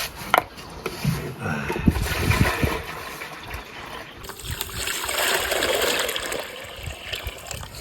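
Water being poured out of a bucket, splashing and trickling onto the ground, heaviest from about halfway through.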